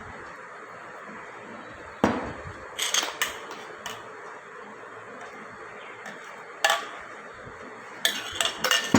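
Kitchen utensils and dishes being handled: a handful of sharp knocks and clinks, one ringing briefly about two-thirds of the way in, over a steady low hiss.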